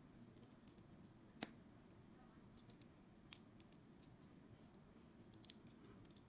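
Faint clicks of small plastic building bricks being handled and pressed together: one sharp click about a second and a half in, another in the middle, and a few softer clicks near the end.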